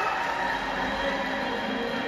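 Crowd noise echoing in a large hall as the cheering settles, with a low steady tone coming in about half a second in.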